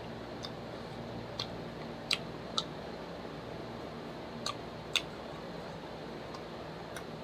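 Close-up chewing of fried chicken with the mouth closed: a handful of short, sharp crunchy clicks, the loudest about two seconds in and again about five seconds in, over a steady low room hum.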